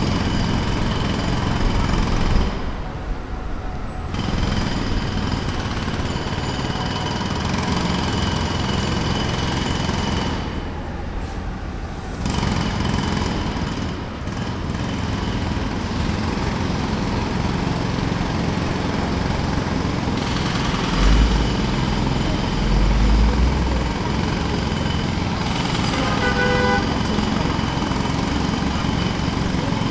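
Jackhammer hammering at a construction site in long runs of rapid blows, easing off briefly a few times, with traffic noise around it. Heavy low thuds come a little past the two-thirds mark, and a short pitched whine sounds soon after.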